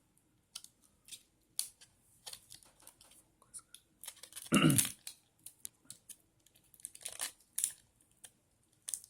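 Taped cardboard box being torn open by hand: scattered crackles and short rips of tape and card, with one longer, louder rip about halfway through.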